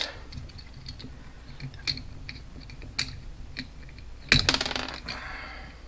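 Small plastic gearbox parts of an RC tank clicking as they are worked apart by hand, then a sudden loud rattling clatter about four seconds in as the gearbox comes apart and its pieces clatter loose.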